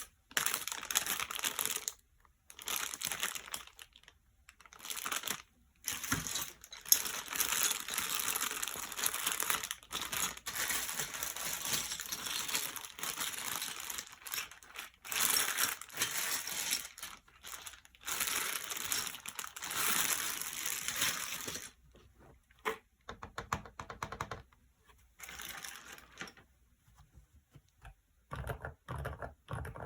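Packaging crinkling and rustling in long bursts for most of the stretch, then scattered clicks. Near the end come short runs of soft taps, typical of keystrokes on a keyboard with Kailh silent cream linear switches.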